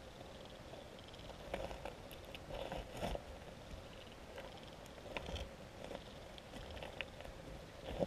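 Muffled underwater ambience of a river picked up by a GoPro Hero 3+ inside its waterproof housing: a faint steady hum under an even hiss, with scattered soft clicks and crackles.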